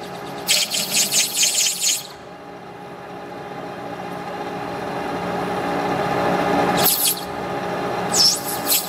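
Lathe turning tool cutting a plastic workpiece, squealing in a run of short shrill bursts at first and again near the end. In between, the lathe runs more quietly with a steady hum that slowly grows louder.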